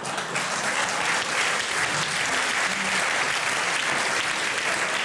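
Large live audience applauding steadily.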